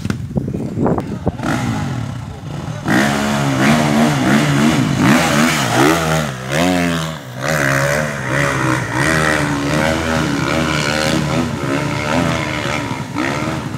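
Dirt bike engine revving hard under load on a steep uphill climb. It gets loud about three seconds in, and its pitch rises and falls again and again as the throttle is worked, with a brief drop near the middle.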